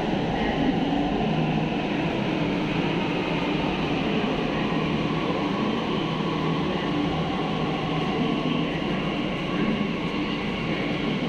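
Steady rumble of a Delhi Metro train in an underground station, with no separate knocks or squeals.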